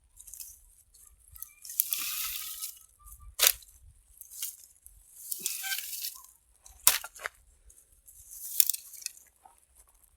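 Dry firewood sticks being gathered and handled: irregular bursts of rustling and crunching, with a few sharp clacks of wood knocking on wood.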